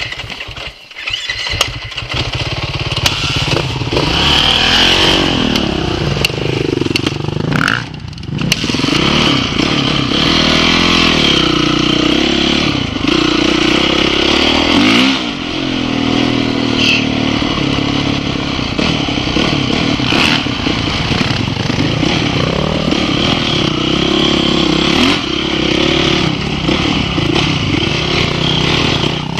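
Off-road dirt bike engine riding a dirt trail, its revs rising and falling again and again as the throttle opens and closes.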